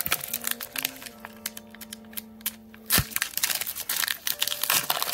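Pokémon booster pack wrapper crinkling as it is handled and torn open by hand, with a sharp snap about three seconds in. Soft background music with held notes underneath.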